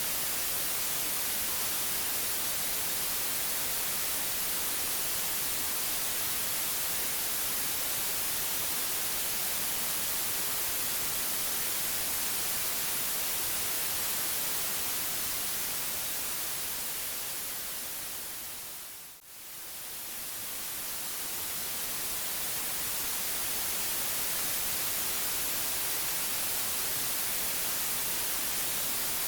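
Steady white noise hiss. About two-thirds of the way through it fades down over a few seconds to a moment of near silence, then swells back up to full level.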